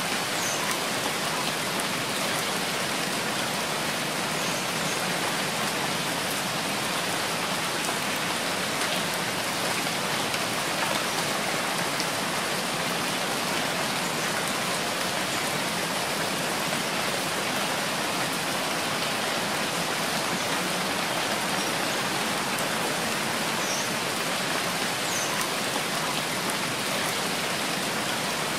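Steady rain falling: an even hiss that does not change, with a few single drops standing out faintly.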